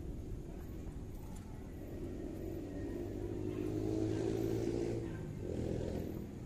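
A motor vehicle's engine running past, a low drone that swells to its loudest about four seconds in and then fades, with a brief second swell near the end.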